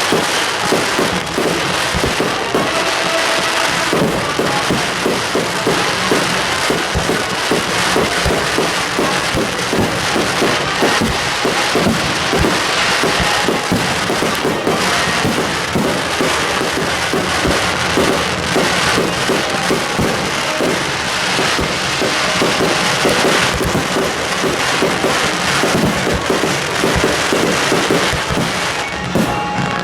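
Fireworks crackling and popping in a dense, unbroken barrage of many small bangs, with music playing alongside.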